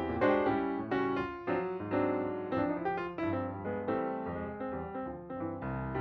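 Background piano music, a run of struck chords and melody notes with a steady pulse.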